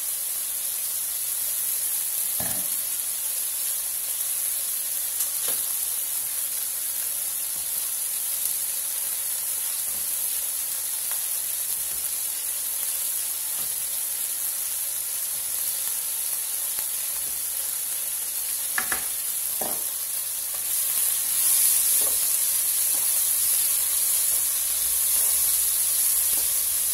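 Chicken and vegetables sizzling steadily as they sauté in a frying pan, with a few brief clicks of a utensil against the pan. The sizzle grows louder about three-quarters of the way through as the food is stirred.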